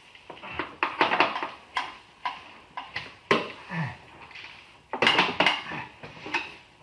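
Irregular metallic clinks and knocks of tools being handled in a cramped car footwell, mixed with a man's effortful huffing and a low grunt a little past halfway.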